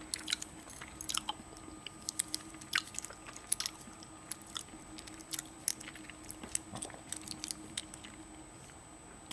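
Irregular light clicks and taps of small plastic toy parts from a Kinder Surprise capsule being handled and snapped together, over a faint steady hum.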